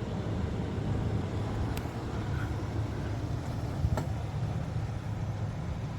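Vehicle engine idling with a steady low rumble, with two brief clicks, one about two seconds in and one about four seconds in.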